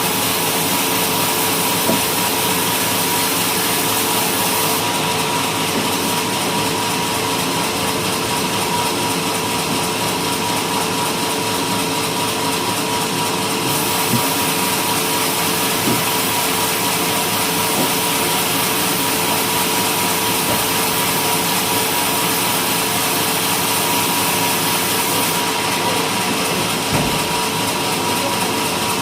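Homemade sawmill running steadily while sawing coconut-palm wood: a constant hum with a higher steady whine over dense noise, and a few faint knocks.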